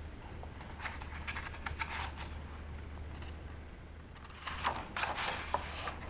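Pages of a paper picture book being handled and turned: light paper rustles and ticks, then a louder rustle of a page turning about five seconds in, over a low steady hum.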